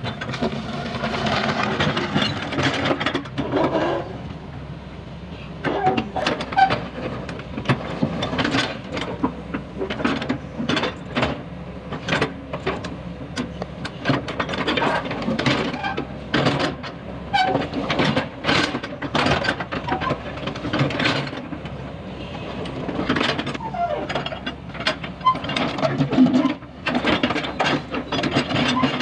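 Hydraulic tracked excavator working: its diesel engine runs steadily under load while the steel bucket scrapes and knocks through mud and broken concrete on the road surface, giving many sharp irregular clanks and scrapes.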